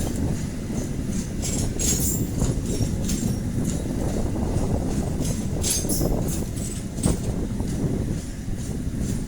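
Passenger train passing close by: a steady low rumble from the cars, with irregular sharp clacks of the wheels over the rail joints.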